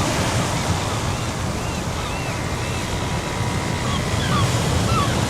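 Wind buffeting the microphone, a fluttering low rumble over a steady hiss, with scattered short high chirps throughout.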